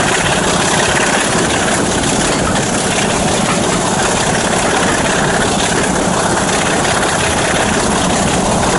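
Train hauled by a Class 26 diesel locomotive running along the line, heard from an open coach window: a loud, steady rumble of the coaches rolling on the rails and air rushing past, with the locomotive's diesel engine working ahead.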